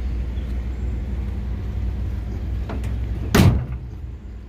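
Steady low hum of the pickup truck's idling engine, with one loud, sharp clack about three and a half seconds in, like a door or latch shutting, and a faint click just before it.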